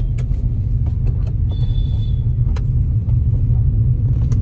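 Steady low rumble of a car's engine and road noise, heard from inside the cabin while driving, with a few faint clicks.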